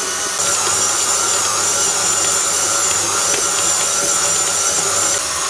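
KitchenAid Classic stand mixer running at slow speed, its motor giving a steady hum as the beater works almond shortbread dough in the steel bowl. A thin high whine comes in about half a second in and drops out shortly before the end.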